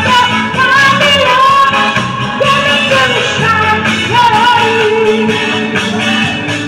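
Live band music with a woman singing a gliding melody into a microphone over a steady beat, amplified through the stage speakers.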